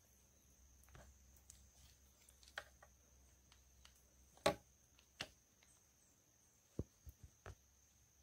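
Faint handling noise from a phone held against the body: scattered knocks and rubs as a cotton T-shirt and wet fingers brush the microphone, the loudest knock about halfway through and a quick run of small ones near the end, over a steady high hiss.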